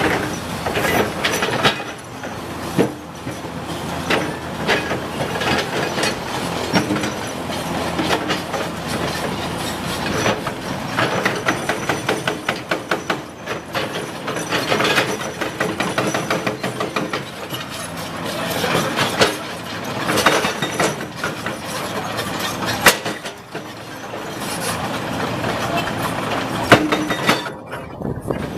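Komatsu PC200 hydraulic excavator running and working, with continual irregular clanking and rattling of metal and rock.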